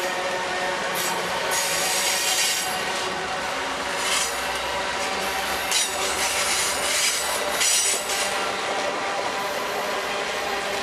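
Amtrak passenger cars rolling past at speed: a steady rush of wheels on the rails, with a ringing tone and repeated surges of higher-pitched wheel noise.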